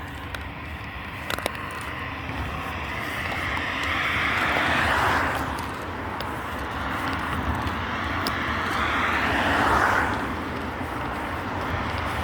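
Cars passing by one after another, their tyre and engine noise swelling and fading away twice.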